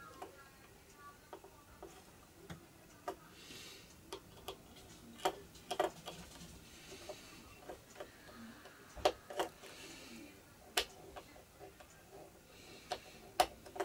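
Irregular small clicks and taps from hands and small tools working on a small circuit board, some louder ones in the second half.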